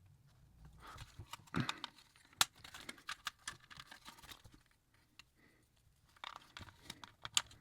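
Small snap-together plastic model-kit parts being handled and pressed into place: a scatter of light plastic clicks and rattles, with one sharp snap about two and a half seconds in and a quiet spell past the middle.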